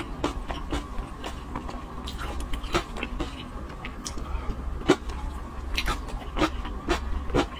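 Close-miked eating sounds: a silicone spatula scraping and tapping on a plate of saucy seafood, then wet chewing and mouth clicks, as many short sharp snaps. Under them runs a steady low hum.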